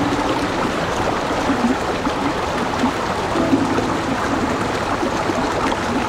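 Shallow river rushing over a rocky bed, a steady, even rush of water.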